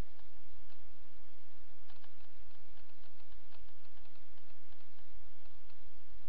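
Steady low electrical hum and hiss, with faint irregular clicks and ticks scattered through the middle.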